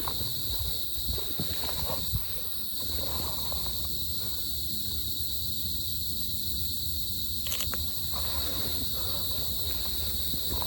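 Forest insects droning in a steady, high chorus of several layered pitches, with a low rumble beneath and a few brief clicks or steps.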